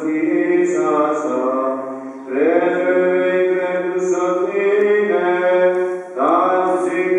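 Greek Orthodox Byzantine chant from a memorial service: a male voice sings long, drawn-out melismatic phrases, pausing for breath about two seconds in and again near the six-second mark.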